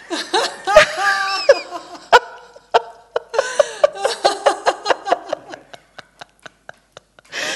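Several women laughing together. The laughter breaks into short, sharp pieces and dies away near the end.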